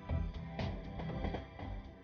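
Background music: an instrumental passage with sustained pitched notes over a steady drum beat.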